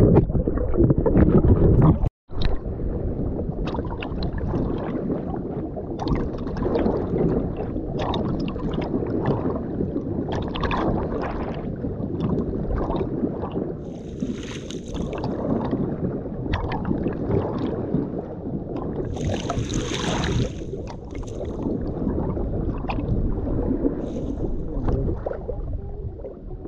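Water splashing and washing around a kayak being paddled on a river, with repeated paddle splashes and wind buffeting the microphone. The sound is loudest in the first two seconds, cuts out briefly, then goes on as a steady wash.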